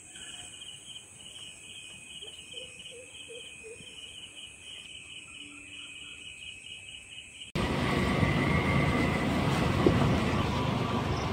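Faint, evenly pulsed insect chirping, like crickets at night, repeating several times a second. After an abrupt cut about two-thirds of the way through, a much louder steady noise of travel along a wet road.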